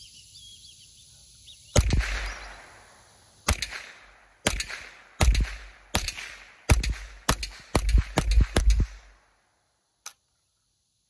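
Winchester Wildcat .22 LR semi-automatic rifle firing about a dozen shots, at first a couple of seconds apart, then in quicker succession near the end, each crack trailing off briefly. A single faint click follows.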